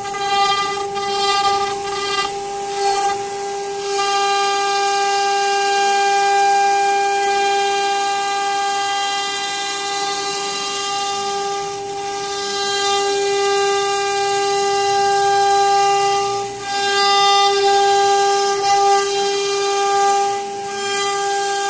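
CNC router spindle running at steady speed with a constant high-pitched whine while its V-bit carves grooves into a wooden door panel, the cut adding a hiss.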